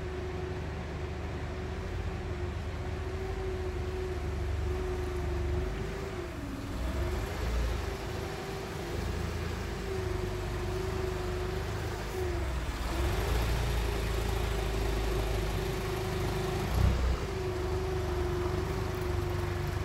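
Propane-fuelled Toyota forklift engine running as the forklift creeps along carrying a heavy upright tank on its forks. The engine's steady hum dips in pitch briefly about three times, and there is one short knock near the end.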